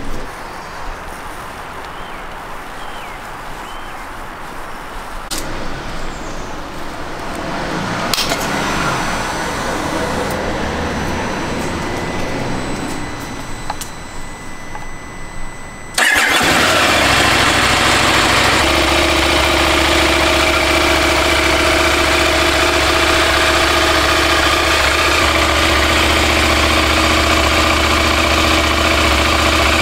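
KTM 890 Adventure's parallel-twin engine, with its stock exhaust silencer, firing up suddenly about halfway through and running at a steady idle. Before it starts there is only faint background noise with a couple of clicks.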